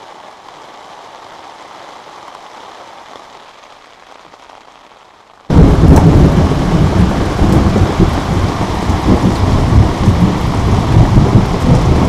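Rain in a thunderstorm: at first a faint, muffled rain sound, then about five and a half seconds in an abrupt change to loud, heavy rain on a wooden deck with a deep, continuous rumble of thunder.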